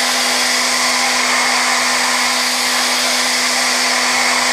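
Okuma GENOS M560-V vertical machining center milling hardened S7 tool steel (56 Rc) on a light finishing pass: the spindle holds a steady hum over an even, loud hiss that does not change.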